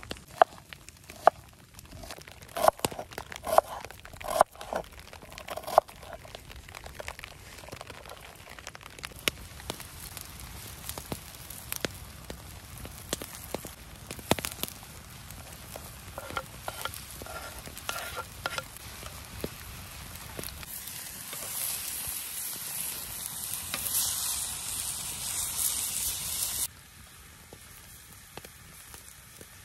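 Knife knocking on a wooden cutting board while chopping onion, then chopped onion and meat frying in a skillet over a campfire, stirred with a wooden spatula. The sizzle grows louder and hissier in the second half, then cuts off suddenly near the end.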